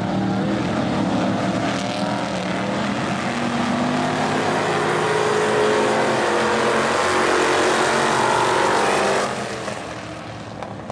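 Dirt-track stock car engines running, several at once, their pitch rising and falling as the cars go around the oval. The engine sound drops off sharply about nine seconds in.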